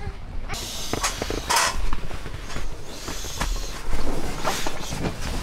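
Sleeping mat being rolled up by hand on a tent floor: fabric and foam rustling with creaks and soft knocks that come in bursts.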